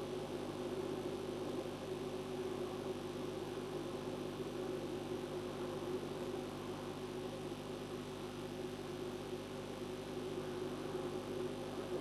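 Steady hum with several constant tones over an even hiss: the background drone picked up by a fixed nest webcam's microphone.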